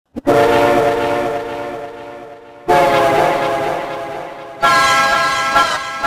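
Train horn sound effect played from a phone app, sounded three times in a row. Each blast is a multi-note horn chord that starts loud and fades, and each is pitched higher than the one before as the app's pitch control is raised.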